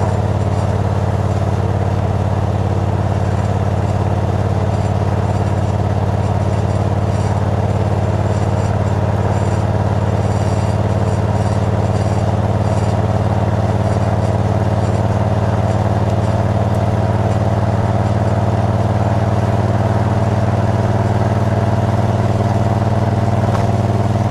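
Moto Guzzi California II's air-cooled transverse V-twin running steadily as the motorcycle cruises at an even speed, heard from the rider's seat.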